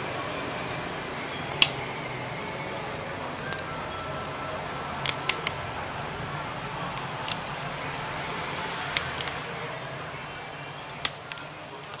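Small diagonal side cutters snipping and cracking off the plastic-and-rubber housing of a USB-C-to-3.5 mm adapter plug: sharp snaps scattered throughout, some in quick twos and threes, about a dozen in all, over a steady low hum.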